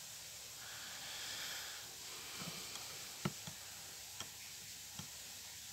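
A handheld EC meter being handled with its probe in a cup of calibration solution: a few light clicks and taps, the loudest about three seconds in, over a steady faint hiss.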